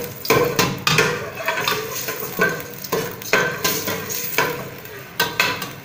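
A cooking spoon stirring in a stainless steel pot, knocking and scraping against the metal in irregular strokes about twice a second, while garlic fries in the hot oil with a light sizzle.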